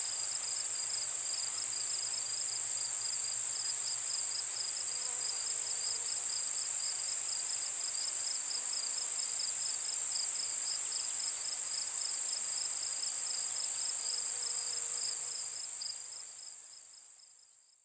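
Insects calling steadily: a continuous high shrill with a rapid pulsing chirp beneath it, fading out over the last few seconds.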